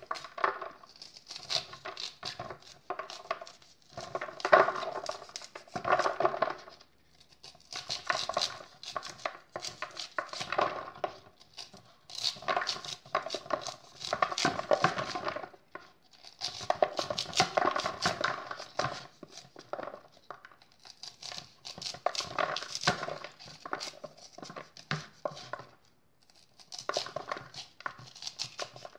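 Kitchen knife slicing the kernels off a fresh corn cob, a crisp crackling with each stroke and kernels dropping into a plastic bowl. It comes in passes of two to four seconds with short pauses between them, about seven in all.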